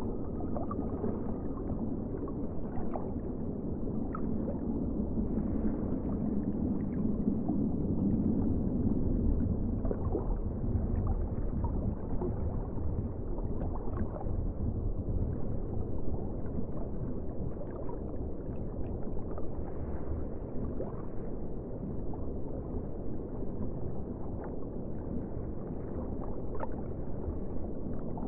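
Deep-sea underwater ambience: a steady, muffled low rumble of water with scattered faint clicks.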